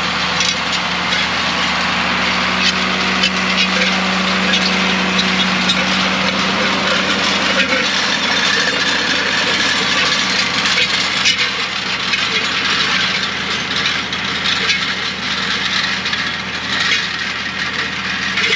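A John Deere tractor's engine running steadily under load as it pulls a chisel plow across a field.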